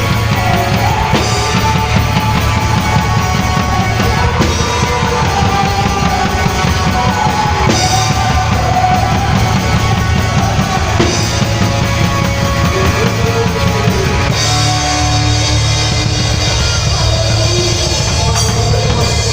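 A band playing loud rock-style music with a full drum kit.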